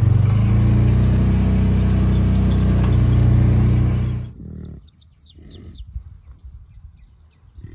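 Utility vehicle's engine running steadily as it drives across a pasture, cut off suddenly about four seconds in. After that, a quieter outdoor background with a few bird chirps and a thin, steady high tone.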